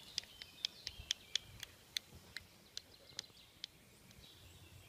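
A nut tapped against a concrete curb: about a dozen short, sharp clicks, roughly three a second, stopping a little before the end. The tapping is a signal to call a park squirrel to be fed.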